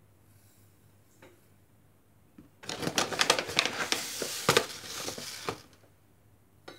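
Dry chia seeds being spooned out of their plastic packet with a plastic measuring spoon. About two and a half seconds in comes a dense run of small clicks and rattles from the seeds and packet, lasting about three seconds.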